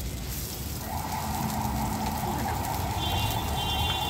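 Gas burner under an iron wok running with a steady low roar, with a higher hiss joining about a second in.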